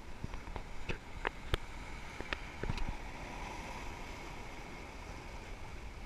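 Small waves washing over a rocky shoreline: a steady low rumble with a hiss on top. In the first three seconds there is a run of short, sharp clicks, louder than the surf.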